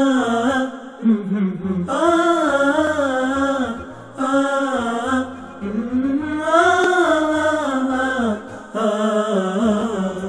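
Male nasheed vocals sung in long phrases, the voice sliding up and down, over a low pulsing beat. These are the closing bars of the theme song.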